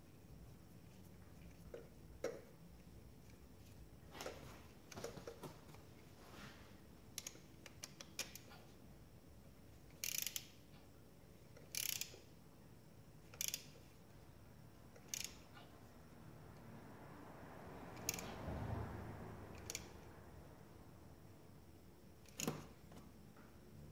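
Hand tools working in an engine bay: a ratchet wrench clicks in short strokes, four of them evenly spaced a bit under two seconds apart in the middle, among scattered taps and clinks of metal on the engine.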